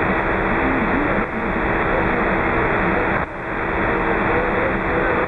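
Radio transceiver's speaker receiving on the 27 MHz band: a steady rush of static with a weak, barely intelligible voice from the distant station buried in it. The noise dips briefly twice.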